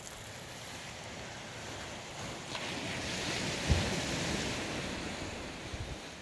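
Sea surf washing on a rocky shore, with wind rumbling on the microphone. The wash swells about halfway through, and there is one short thump.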